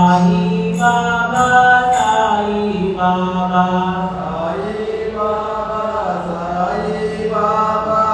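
Devotional chant sung in long held notes over a steady low drone, with light metallic ticks in the first couple of seconds.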